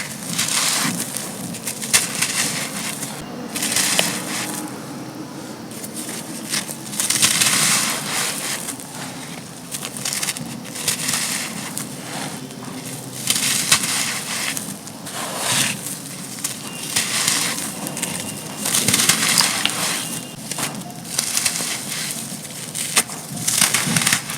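Dry, gritty black sand-cement chunks being crushed and crumbled, in a run of separate crunches a second or two apart.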